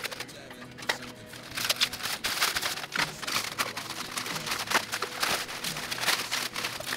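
Protective plastic film being peeled and pulled off the trailer's roof panels, crackling and tearing in quick irregular bursts as the stubbornly stuck film comes away. Background music plays under it.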